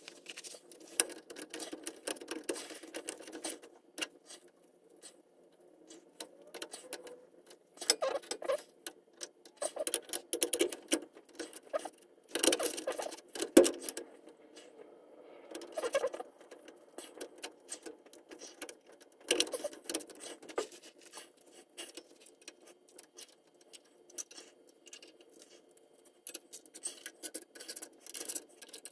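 Hand tools on a race car's clutch assembly: bursts of rapid metal clicking and clattering with short pauses between them, the loudest about halfway through, over a faint steady hum.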